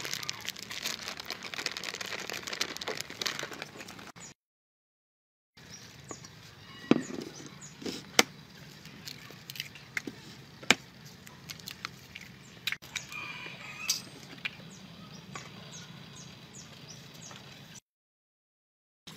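Flour pouring in a steady hissing stream into a stainless steel mixing bowl. After a break, eggs are cracked against the bowl one after another, giving a series of sharp taps and cracks.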